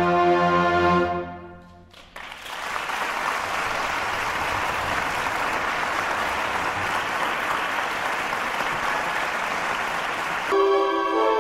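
Ground-meat patties sizzling steadily in an oiled skillet. Orchestral background music fades out in the first couple of seconds and comes back in near the end.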